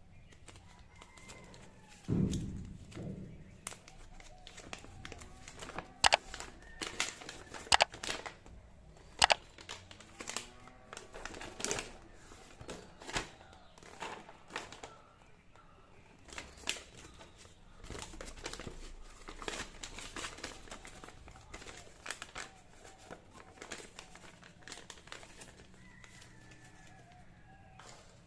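Packaging being unwrapped and handled: crinkling and rustling with many sharp clicks and taps, the loudest cluster between about six and ten seconds in.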